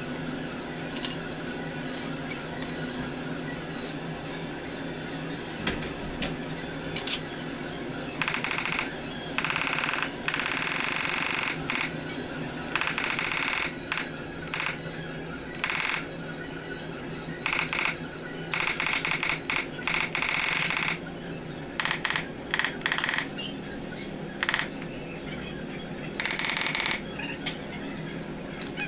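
Compressed air hissing from an air tool in short bursts that start and stop abruptly, beginning about eight seconds in and coming on and off irregularly, over a steady low hum.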